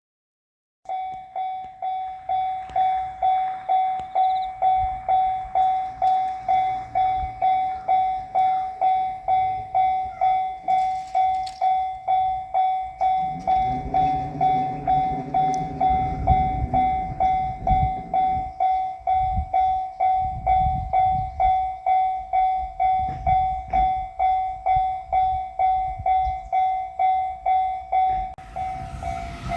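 Japanese level-crossing warning bell starting up and ringing its electronic 'kan-kan' at about two strokes a second, warning of an approaching train. A low rumble rises and fades midway. Near the end a rushing noise swells as the train comes up to the crossing.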